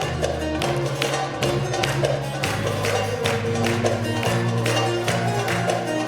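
Turkish folk music ensemble playing, with plucked strings over a bass line and a steady percussion beat.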